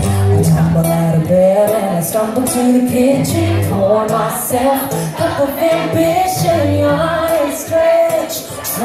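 Live band playing: a woman sings lead over two acoustic guitars, electric bass and drums keeping a steady beat.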